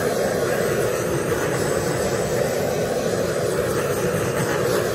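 Handheld torch burning with a steady hiss and roar, passed over wet poured acrylic paint to pop surface bubbles.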